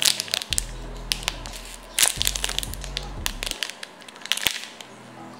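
A clear plastic packaging bag crinkling and crackling with many sharp, irregular crackles as the squishy toy sealed inside it is squeezed through the plastic. Background music plays with steady low tones underneath.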